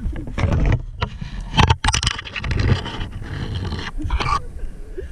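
Close, irregular scraping and rustling with several sharp knocks: a climber moving about on a treetop rope-course platform, with leafy branches and climbing gear on the steel cable brushing and knocking.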